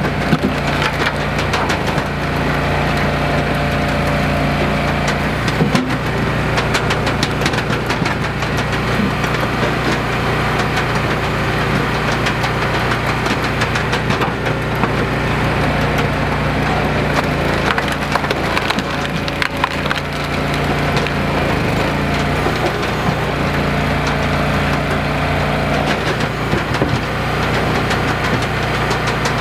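Gas-engine hydraulic log splitter running steadily while rounds are forced through the wedge, the wood cracking and splintering as it splits.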